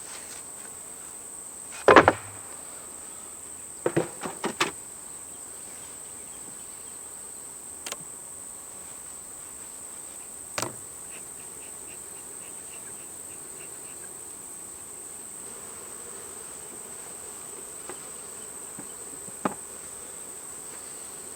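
Wooden beehive parts knocking as the hive is worked: a sharp knock about two seconds in, a quick cluster of knocks around four seconds, and a few lighter ones later. Under them runs a steady high-pitched insect drone.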